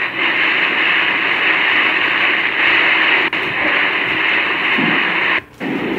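Loud, steady noise of storm wind and driving rain, played back through a screen's speaker. It cuts out briefly near the end.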